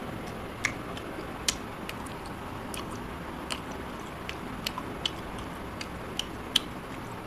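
A man chewing food, with small sharp mouth clicks and smacks at irregular intervals over a steady background hiss.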